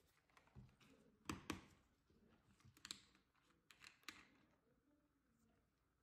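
Faint scattered clicks and taps of a plastic bottle being handled and its screw cap twisted off, against near silence; the loudest knocks come about a second and a half in and again about four seconds in.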